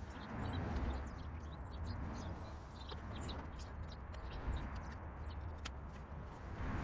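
Faint birds chirping: short, scattered high calls over a steady low outdoor rumble.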